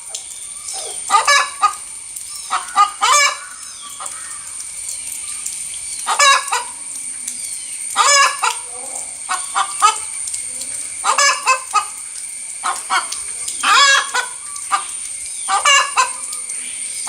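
Domestic hen giving her egg-laying cackle: loud, repeated clucking calls in bursts every second or two, the announcing call a hen makes after laying an egg.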